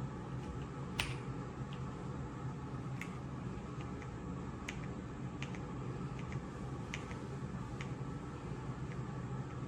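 Scattered single key clicks from the EPOMAKER x Aula F75 mechanical keyboard, about one a second at an uneven pace, the sharpest about a second in, over a steady low hum.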